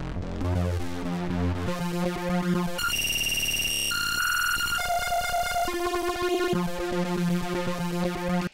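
Synthesizer sample playing through an iPad MIDI controller app, its pitch jumping in sudden steps about once a second as the pitch control is moved and snaps back toward its center default in coarse ticks.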